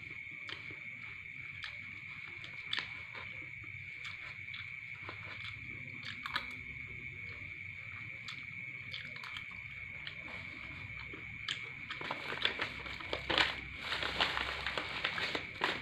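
A metal spoon scrapes and taps on a paper food wrapper in scattered light clicks, over a steady high-pitched tone. From about twelve seconds in, the paper wrapper and a plastic bag crinkle as they are folded up.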